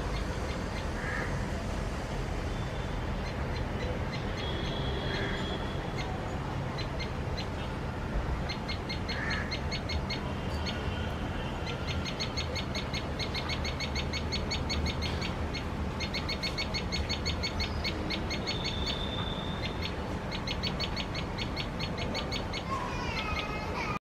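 Tailorbird calling: a few short high whistles, then from about halfway fast runs of sharp high chips, about eight a second, in three bursts. A steady low background hum runs underneath.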